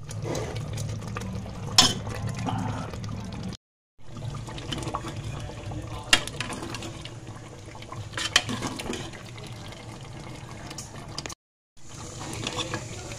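Chicken pieces in masala sizzling and bubbling in a hot pan, with a metal ladle clinking against the pan a few times. The sound cuts out briefly twice.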